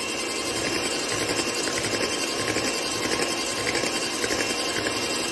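Electric hand mixer running at a steady speed with a high whine, its twin beaters whirring through thick cake batter in a glass bowl.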